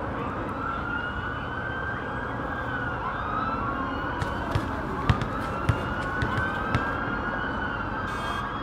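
Emergency vehicle siren wailing, its pitch slowly rising and falling, over steady city traffic noise, with a few sharp clicks about halfway through.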